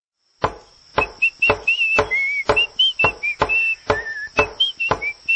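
A hammer knocking nails into a small wooden birdhouse at about two strikes a second, while a tune is whistled along with it from about a second in.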